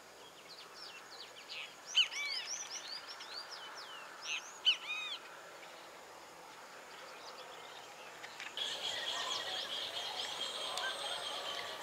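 Birds chirping in quick series of short, arching notes during the first half. From about eight and a half seconds a steady high buzz joins in, along with more scattered chirps.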